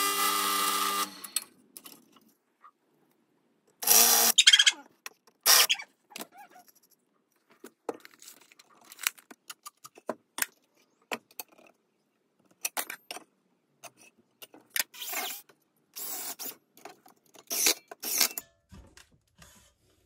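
Drill press running as its bit cuts through a metal bracket, a steady whine that stops about a second in. Then scattered knocks, scrapes and clatters of timber and tools being handled on a metal-covered workbench, with two louder clatters about four and five and a half seconds in.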